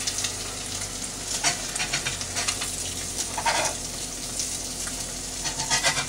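Eggs frying in a Lodge 10-inch cast iron skillet with a steady sizzle, while a metal spatula scrapes and clicks against the pan a few times as the eggs are flipped.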